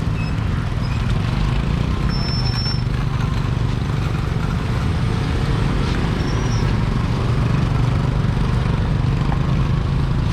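Mekong ferry's engine running with a steady low drone, mixed with open-air noise, and a short high tone about two seconds in.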